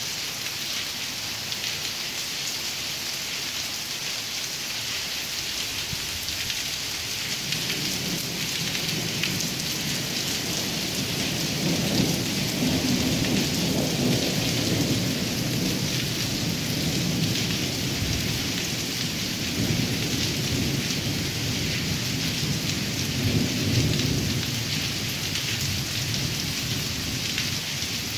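Steady rain hissing on wet pavement. About a quarter of the way in, rolling thunder rumbles in, swells twice, and dies away near the end.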